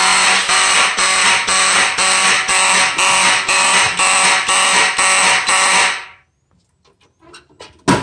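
Amseco BZ54VT motor horn sounding a fire alarm in march-time pulses, about two a second, with a raspy, unhealthy tone that the owner thinks means it needs repair. It cuts off about six seconds in, and a few faint clicks follow.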